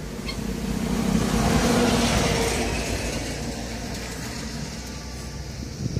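A passing motor vehicle's engine, growing louder to its peak about two seconds in and then fading away.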